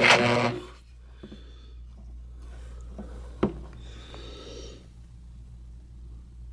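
DeWalt DW309 reciprocating saw's motor running with a steady whine, winding down under a second in as the trigger is let go. After that it is quiet, with a low hum and a few small clicks, one sharper about three and a half seconds in. The motor spins but the blade clamp doesn't move, which the owner takes for something broken in the saw.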